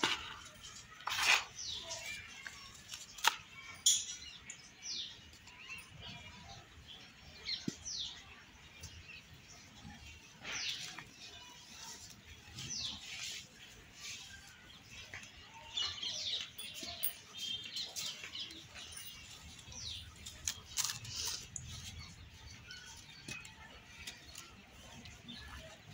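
Dry yellow soil being crumbled and sifted by hand in a plastic tub: irregular dry, grainy rustling and pattering as lumps break and fine soil pours through the fingers. There are a few sharper crunches in the first few seconds.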